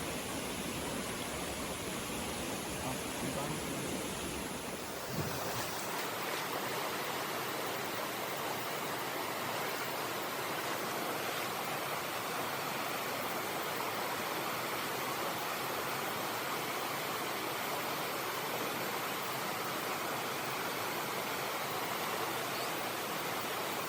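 Rushing water of a stream, a steady even hiss. About five seconds in there is a brief knock, and the low rumble drops out.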